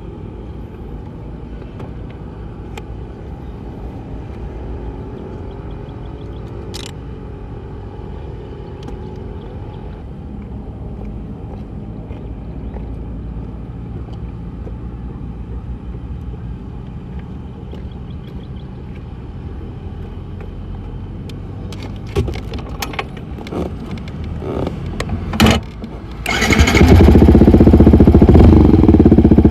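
Yamaha MT15's single-cylinder engine through an aftermarket SC Project muffler, idling steadily, then a few short sharp throttle blips a little after twenty seconds in. Near the end it runs much louder and steadily under throttle.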